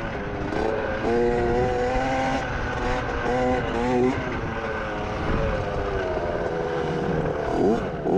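Dirt bike engine revving hard on a motocross track. Its pitch holds, climbs, drops and climbs again over and over as the rider works the throttle and shifts.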